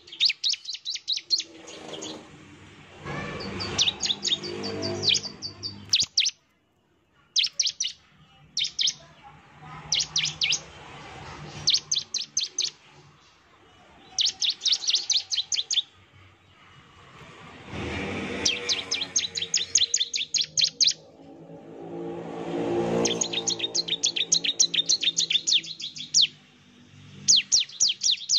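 Bar-winged prinia (ciblek) singing in its rapid 'nembak' style: repeated bursts of fast, high-pitched chipping notes, each burst about a second long, separated by short pauses. A fainter, lower pitched sound runs underneath in places.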